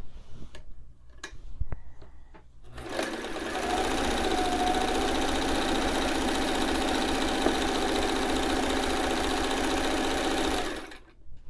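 White 173 sewing machine stitching fabric strips. It starts after a few light clicks of fabric handling, winds up to a steady speed, runs evenly for about seven seconds, then stops shortly before the end.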